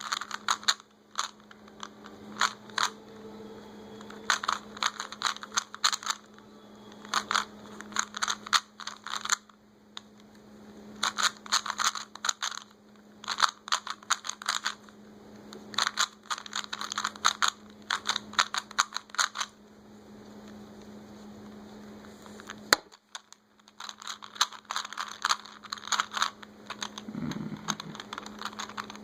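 Plastic Rubik's cube being twisted by hand: bursts of rapid clicking and clacking as the layers turn, broken by short pauses. The cube is a stiff one that doesn't turn smoothly. A steady low hum runs underneath.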